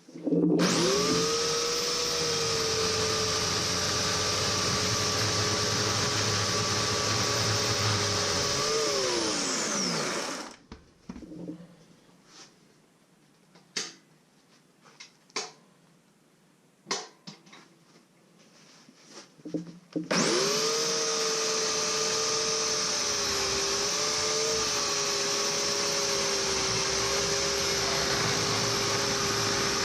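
Bauer corded electric chainsaw switched on, its motor and chain running at a steady whine for about nine seconds, then coasting down with a falling pitch. A few knocks and clicks follow, then the saw starts again about two-thirds of the way in and runs on steadily.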